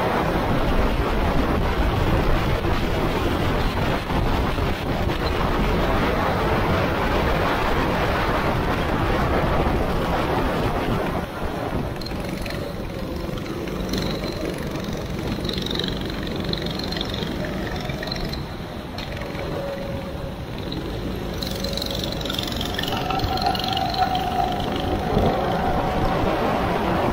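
Go-kart engine heard from the onboard camera under heavy wind and wet-track spray noise. About eleven seconds in the rushing noise drops as the kart slows, and near the end the engine note climbs again as it accelerates.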